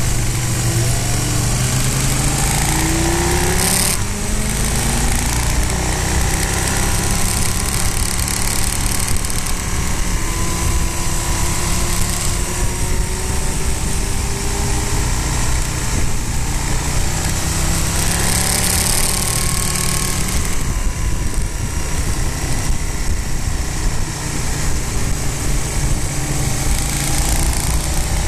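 Motorcycle engine running on the move, its pitch rising and falling as the throttle opens and closes through the bends, over a steady rush of wind on the microphone.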